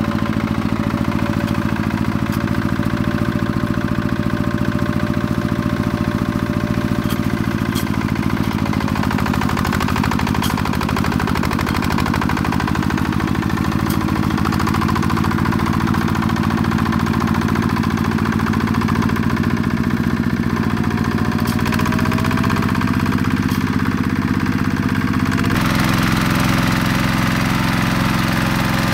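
Two-wheel hand tractor's single-cylinder diesel engine running steadily under load while tilling. The engine note changes abruptly near the end.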